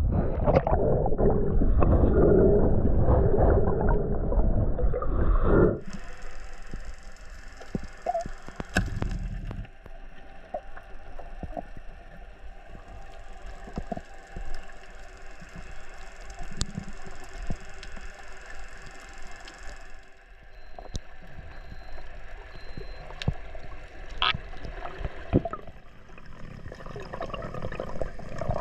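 Sea water sloshing and splashing around the microphone at the surface; about six seconds in it goes under, and the sound turns to a muffled underwater hush with scattered faint clicks.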